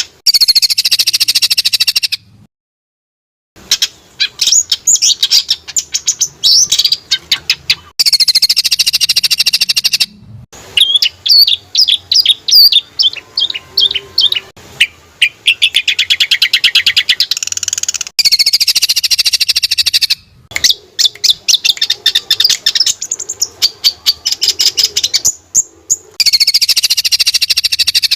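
Songbird singing a fast, rolling trill song of rapid, sharp repeated notes in bursts of one to three seconds, the kind of 'roll tembak' phrasing used as training song for murai batu, cucak ijo, kacer and cendet. The song breaks off abruptly several times.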